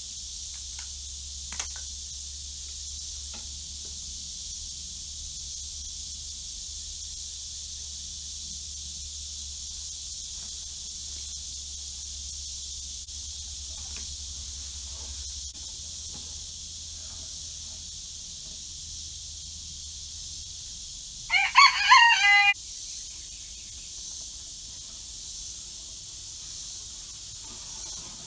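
A rooster crows once, a loud call of about a second roughly three-quarters of the way through, over a steady high-pitched insect drone.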